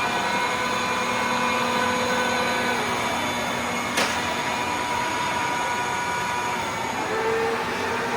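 Cincinnati Vercipower horizontal milling machine running under power, a steady gear whine over mechanical hum. About three seconds in one tone slides down in pitch, a sharp click follows a second later, and a new tone comes in near the end.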